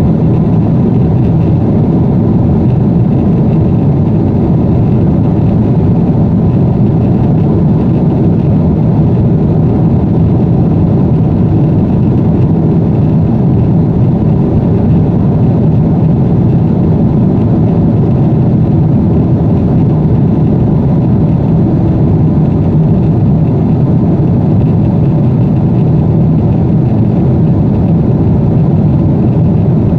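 Steady cabin noise of a jet airliner in flight: engine and airflow noise heard from inside the cabin. It is a loud, unchanging low rumble.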